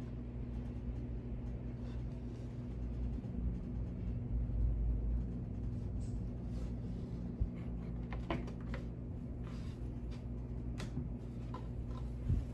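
Scattered light clicks and knocks of dollhouse kit pieces being handled on a work surface, a few seconds apart, over a steady low hum.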